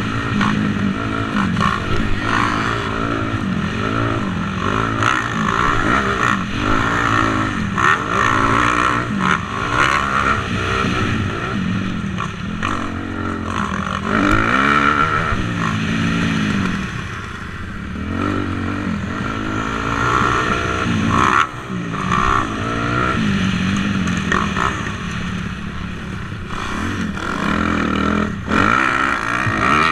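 Motocross bike engine revving hard as it is ridden round the track, pitch climbing and dropping every second or two with throttle and gear changes.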